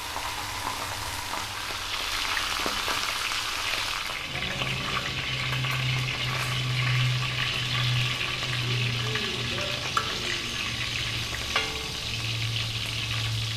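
Pork frying with a steady crackling sizzle, a low hum coming and going, and a couple of light clicks.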